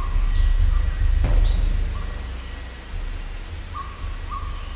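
Outdoor wildlife ambience: a few short whistled calls, over a steady high-pitched insect-like whine and a low rumble. There is a single click about a second in.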